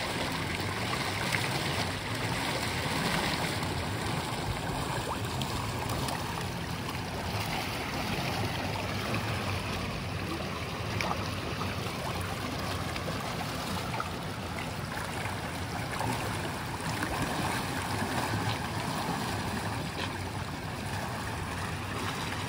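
Water spilling over a concrete step into a fish-hatchery raceway: a steady rush of falling water.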